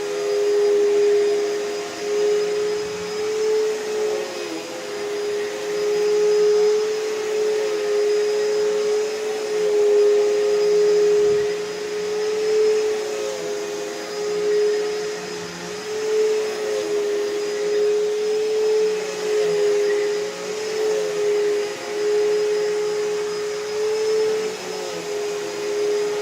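Hoover Elite Rewind upright vacuum cleaner running steadily with a constant motor whine, its loudness swelling and easing every few seconds as it vacuums the room.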